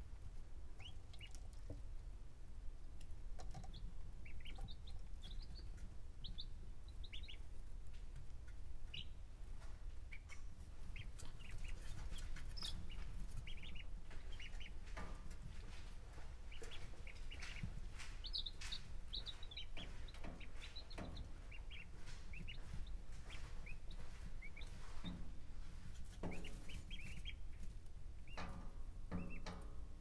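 Baby chicks and other young poultry peeping in short, high chirps dotted throughout. Scattered light scratches and taps, likely their feet on the bedding, grow busier in the last few seconds. A steady low rumble runs underneath.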